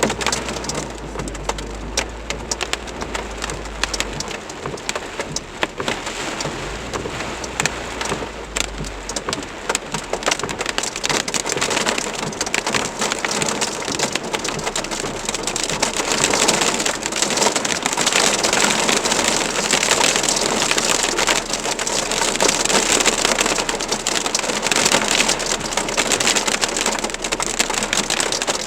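Heavy rain mixed with hail pelting down: a dense hiss full of sharp clicks from the hailstones, getting louder about halfway through. A low rumble comes through twice in the first nine seconds.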